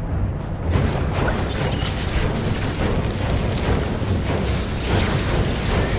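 Film sound effect of a magical blast of fire: a dense, sustained rushing boom with a deep low rumble, setting in sharply under a second in and holding loud.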